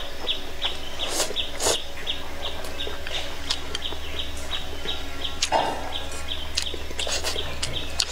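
A woman slurping and chewing noodles close to the microphone, a few sudden wet mouth noises, the loudest about halfway through, over a bird chirping steadily about three times a second.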